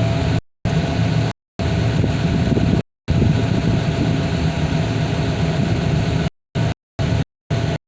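A heavy engine running steadily. The sound drops out to complete silence several times, in quick short gaps near the end.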